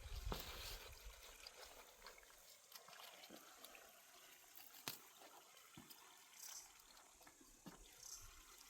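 Quiet, faint trickle of water with a few small, sharp clicks, the clearest about five seconds in.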